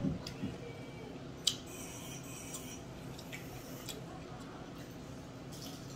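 Light eating and tableware noises at a meal: a few small clicks, the sharpest about a second and a half in, followed by a brief scrape or rustle, over a low steady hum.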